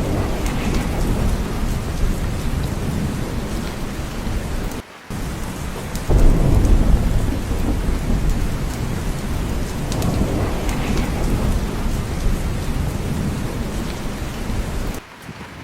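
Steady heavy rain with low rolling thunder, the rumble swelling about six seconds in. The sound drops out for a moment just before five seconds and again near the end, like edit joins.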